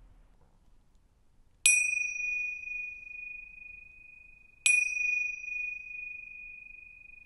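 Tingsha cymbals struck together twice, about three seconds apart; each strike is a bright ding that rings on as one steady high tone, slowly fading.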